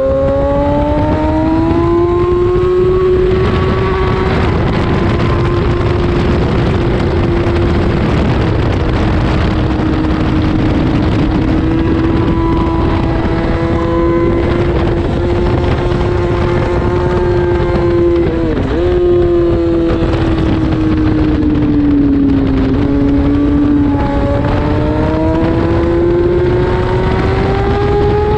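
Road-racing motorcycle engine at high revs, heard onboard at speed with heavy wind rush. Its note holds fairly steady, dips sharply for a moment about two-thirds of the way through, then sags and climbs again near the end as the bike accelerates past 100 mph.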